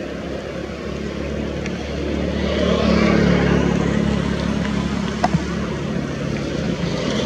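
A motor engine running with a steady low hum under a hiss, growing louder from about two seconds in, with one short sharp click about five seconds in.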